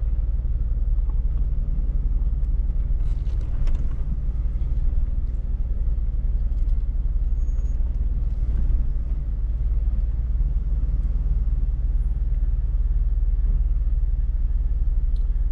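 Jeep engine's steady low rumble while crawling slowly over rock, heard from inside the cab.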